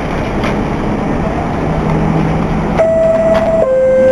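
New York City subway F train running at a station, a steady rumble. About three seconds in, the subway's two-note door chime sounds, a higher note then a lower one.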